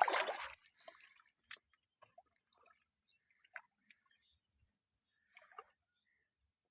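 Pond water splashing at the start, then scattered drips and small splashes that fade away.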